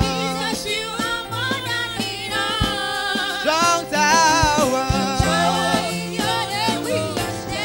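Live gospel worship music: a singer's wavering, sliding vocal line carries over keyboard, steady bass notes and a few drum hits.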